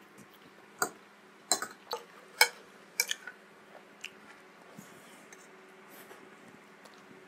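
Close-miked eating sounds from a person finishing spicy instant noodles: a quick run of sharp wet clicks and smacks in the first three seconds, then fainter mouth sounds as the last of the sauce is sipped straight from the plate.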